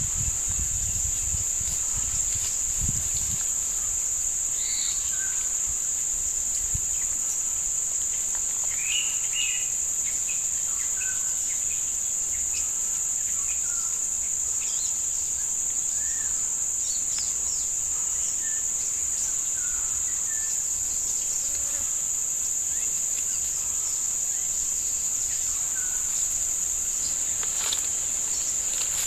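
Forest insects keep up a steady, high-pitched drone, with short bird chirps scattered through it.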